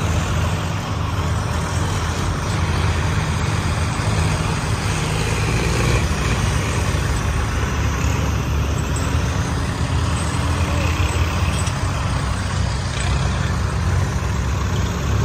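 Diesel farm tractor engines running hard as John Deere and Swaraj tractors are driven at speed, a steady low engine drone with a broad noisy rush over it.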